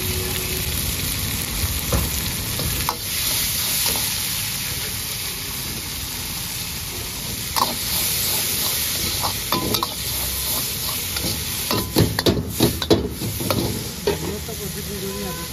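Diced vegetables sizzling in a hot wok, with a steady hiss, as a metal ladle stirs and scrapes them. A few knocks of the ladle on the wok, then a quick run of knocks about twelve seconds in.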